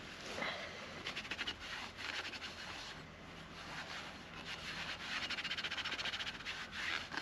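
Frogs calling in rapid pulsed trills, several in a row, the longest about two seconds.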